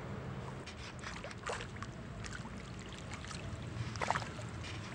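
Riverside ambience on a windy day: wind and small waves on the water, with a faint, steady low hum underneath and a few faint short sounds.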